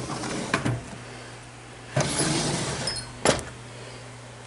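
Steel cabinet drawers full of drill bits. One is pushed shut at the start with a clunk. About two seconds in, another slides out on its runners for about a second, the bits inside clinking, and it stops with a sharp knock.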